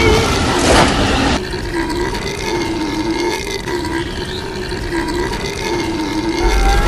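A cartoon character's long, drawn-out belch, wavering up and down in pitch for about five seconds after a rougher, noisy opening.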